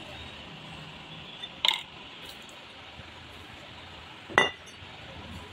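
Two sharp metallic clinks, about one and a half and four seconds in, as the removed cylinder block of a Yamaha R15 engine is handled and set down on the floor; the second rings briefly.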